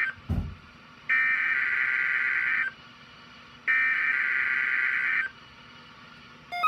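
Emergency Alert System SAME header: screeching digital data bursts. The tail of one burst is followed by two more of about a second and a half each, a second apart, which encode the alert's originator, event type and area. A low thump comes shortly after the first burst, over a faint steady hum.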